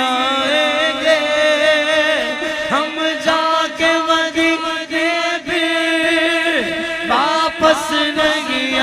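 Naat singing: a male voice holds long, wavering melismatic notes without words over a steady hummed vocal drone.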